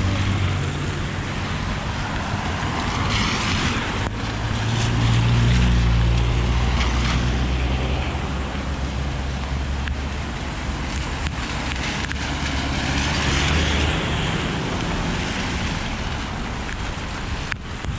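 Wind buffeting the microphone in heavy rain, with cars passing on the wet road, their tyres hissing through the water. A deep rumble swells in the middle and fades near the end.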